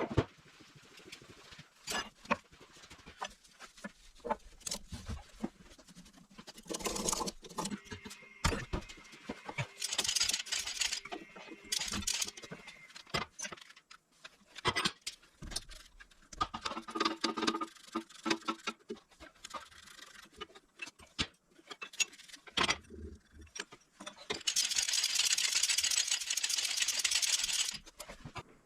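Metal tools and parts clicking and knocking in irregular short strikes during hands-on work on the dozer's transmission, with a few bursts of hiss and a steady hiss lasting about four seconds near the end.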